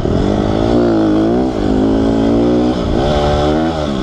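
Honda CRF150R's single-cylinder four-stroke engine running under load while riding on dirt. Its pitch climbs and drops about three times as the throttle is opened and eased off.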